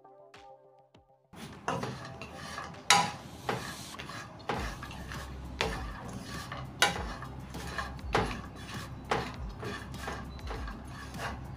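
Spoon or spatula stirring coconut slices in a frying pan while they toast, with scraping and a sharp clink against the pan about once a second.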